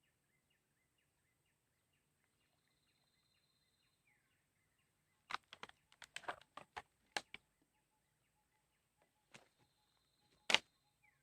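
Quiet outdoor ambience with faint repeated chirps, broken by a quick cluster of sharp clicks and taps about five to seven seconds in, and a louder single tap near the end.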